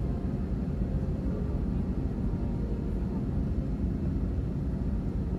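Steady, deep rumble of jet engines and airflow heard from inside an Airbus airliner cabin.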